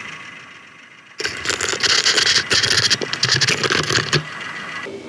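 Mechanical rattling and grinding from a milling machine, most likely its head being moved down the column. It starts suddenly about a second in, is loud for about three seconds and tails off near the end, after a steady motor hum fades in the first second.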